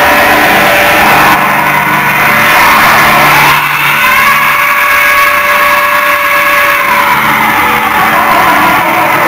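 Aggrotech/industrial rock band playing live at very loud volume. About three and a half seconds in, the low end drops away and leaves held steady tones, and it comes back near the end.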